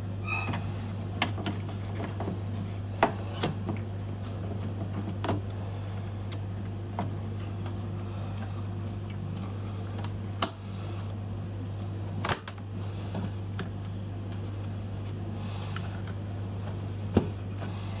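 Desktop RAM modules being handled and pressed into their motherboard slots: scattered clicks and knocks, a few of them sharp, over a steady low hum.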